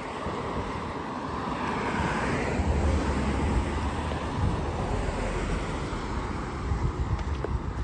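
A steady engine drone with a low rumble underneath, swelling a little about two seconds in.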